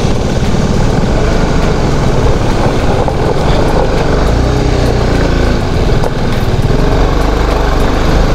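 Motorcycle engine running under way, a steady low drone whose pitch shifts up and down in the second half.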